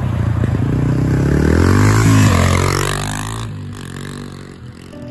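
2008 Yamaha TT-R230 dirt bike, an air-cooled single-cylinder four-stroke with an FMF exhaust, revving up as it rides toward and past, its pitch dropping as it goes by about two seconds in, then fading as it rides away.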